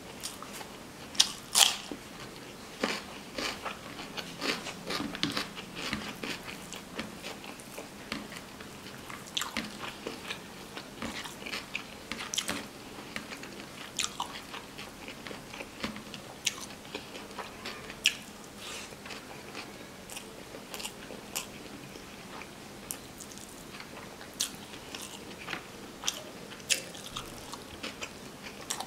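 Close-up eating sounds: crisp crunching bites of raw cucumber slices and chewing of rice and curry eaten by hand, a steady run of crunches and mouth clicks with the loudest bites about one to two seconds in.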